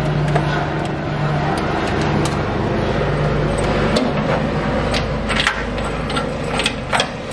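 A helicopter running, a steady low drone, with scattered sharp clicks and rattles of cable and plastic trim being handled up close.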